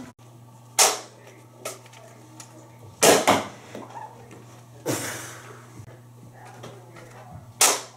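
Spring-powered Nerf blasters firing, a sharp snap with each shot: five in all at uneven intervals, two of them close together about three seconds in.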